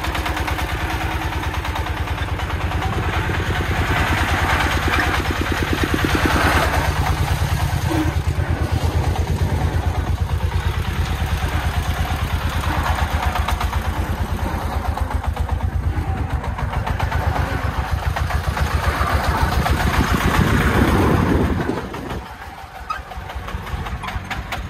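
Loaded công nông three-wheeled dump truck's single-cylinder diesel engine chugging under load as it drives over soft ground, with the revs swelling now and then. Its sound drops off sharply about three seconds before the end.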